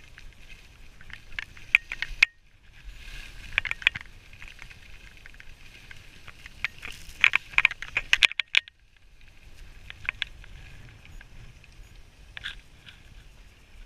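Skis scraping and carving across packed snow on a downhill run, a rough hiss with sharp crackles and clicks in uneven bursts. It drops away briefly twice.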